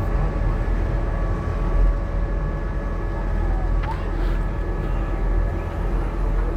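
Passenger ferry's engines running steadily with a deep, even rumble and a faint steady hum above it.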